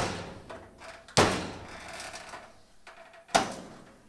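Three sharp knocks on the sheet-metal rear body of a 1928 Ford Model A as it is bumped forward into alignment, the panel ringing briefly after each blow.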